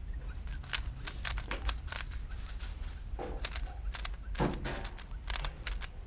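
A 3x3 puzzle cube being turned by hand: quick, irregular clicking of its layers, in bursts of several clicks, over a steady low hum. Two short low sounds come about halfway through and again a second later.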